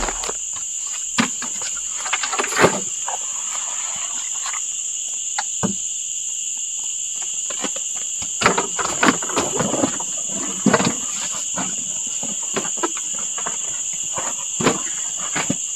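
A steady, high-pitched insect chorus singing at two pitches. Scattered knocks and rustles come from bags and gear being handled in a wooden boat.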